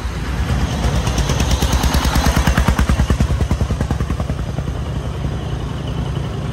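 Diesel engine of a loaded earth-hauling công nông (small Vietnamese farm dump truck) chugging past at close range. It is a rapid, even knocking of about eight or nine beats a second over a low rumble, loudest about two to three seconds in and then easing off.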